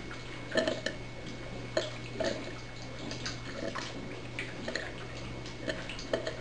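HHO gas bubbling through water in a home-made electrolysis setup: irregular small pops and drips, over a steady low hum.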